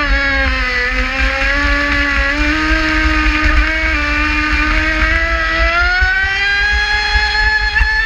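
Traxxas Spartan RC speedboat's brushless motor on 6S whining at speed, over a low rumble of hull and spray. The whine dips briefly about a second in, then climbs steadily near the end as the boat speeds up.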